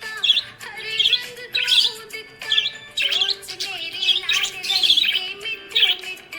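Budgerigar chirping: a steady run of short, high chirps and warbles, several to the second, over background music.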